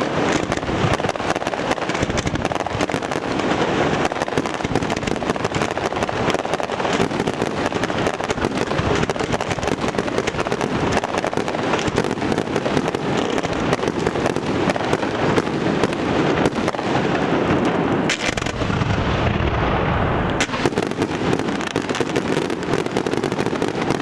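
Fireworks display: a dense, unbroken barrage of shell bursts, bangs and crackling, with a heavier boom and low rumble about three quarters of the way through.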